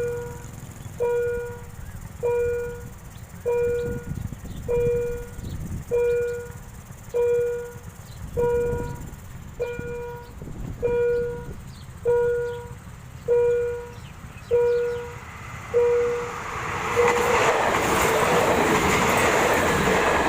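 Railway level-crossing warning bell striking about once every 1.2 seconds, each ring fading before the next. About 17 seconds in a diesel railcar train passes over the crossing, loud and rising over the bell.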